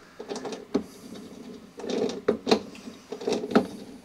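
Plastic lawnmower drive wheel being pushed onto its axle and turned by hand, with a few sharp clicks and short rattles of plastic parts.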